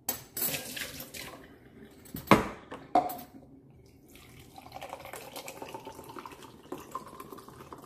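A few knocks as a plastic cup is set down on a stone counter, then lemonade pouring steadily from a plastic pitcher into the cup from about halfway through.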